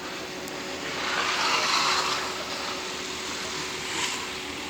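An engine running steadily with a constant hum. A hissing rush swells about a second in and fades a second or so later, and there is a short sharp click near the end.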